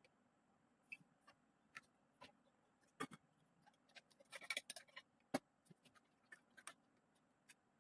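Faint, scattered light clicks and taps, with a short flurry of them about four and a half seconds in and one sharper click just after.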